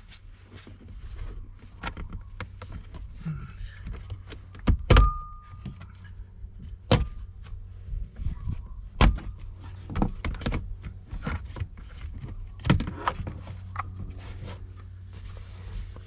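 Plastic front section of a 2008 Nissan Frontier's center console being jerked up by hand: a series of sharp plastic clicks, pops and knocks as its retaining clips let go, the loudest about five, seven and nine seconds in.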